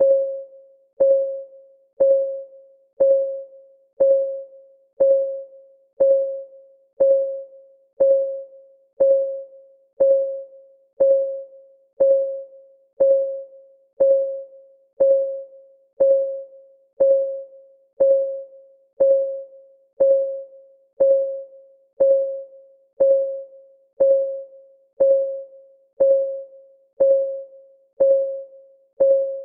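Clock-ticking sound effect of a countdown timer: a short, pitched tick about once a second, each dying away quickly, at a steady even pace.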